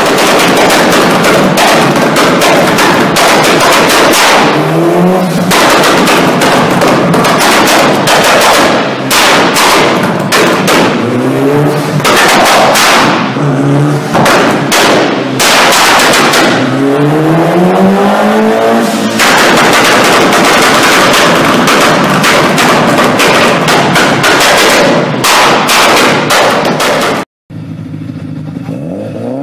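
Mitsubishi Lancer Evolution's turbocharged four-cylinder engine on a dyno, run with anti-lag: a rapid, continuous string of loud bangs and pops from the exhaust, with the revs rising several times. Near the end the sound cuts off sharply and a quieter Evo engine running steadily follows.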